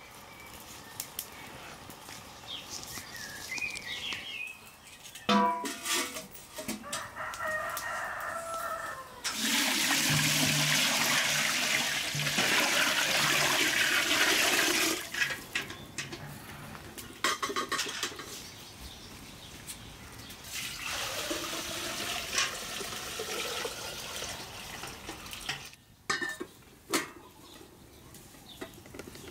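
A rooster crows about five seconds in. From about ten seconds in, water is poured from a metal bucket into a large pot for about five seconds, the loudest sound.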